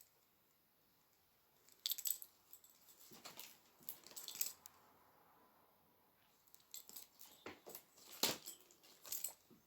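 Faint handling noise: scattered light clicks and short rustles, with quiet room tone between.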